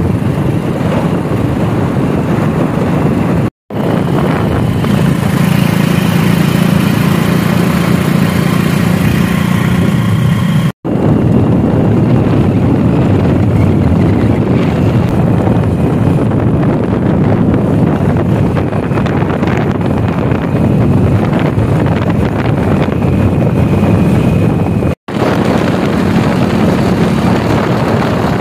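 Motorcycle engine running steadily at cruising speed, with wind rushing over the microphone. The sound cuts out for an instant three times.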